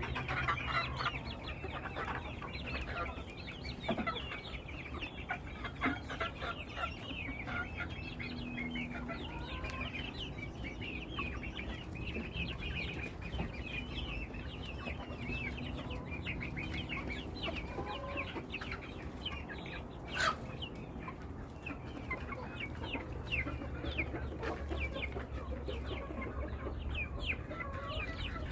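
A flock of chickens clucking and calling, with many short, high-pitched calls overlapping all through. One sharp click sounds about twenty seconds in.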